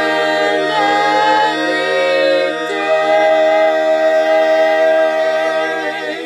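A mixed-voice a cappella group of five singers holding the final chord of a song; the harmony shifts about two and a half seconds in, and the chord is released cleanly at the end.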